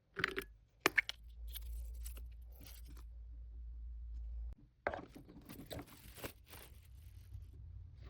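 Wrapping or packaging material being handled: a series of short crinkling, tearing sounds, bunched together about two-thirds of the way through.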